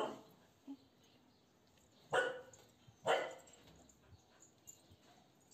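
A dog barking twice, about a second apart, after the fading end of an earlier bark.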